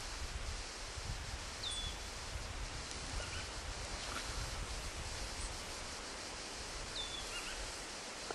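Outdoor ambience: a steady rustling hiss over a low, fluctuating rumble, with a small bird giving short, high, downward-sweeping chirps, clearest about two seconds in and again near the end.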